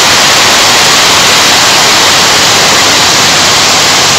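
Torrential rain mixed with small hail pouring down, a loud, steady hiss.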